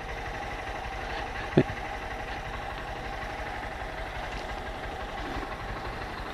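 Honda 160 motorcycle's single-cylinder engine idling steadily while stopped, with one brief blip about a second and a half in.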